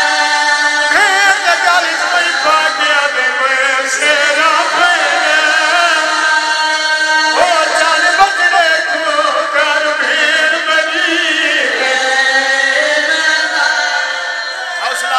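A man's voice chanting a melodic elegiac recitation into a microphone, with long wavering held notes and melismatic runs.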